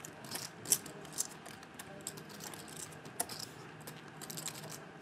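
Poker chips clicking as they are handled at the table: light, irregular clicks over a faint steady room hum.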